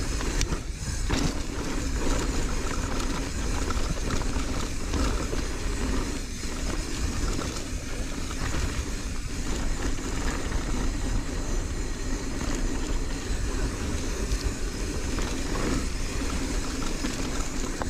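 Wind rumble on the microphone with tyre and frame rattle from a Marin San Quentin mountain bike riding fast down a dirt trail.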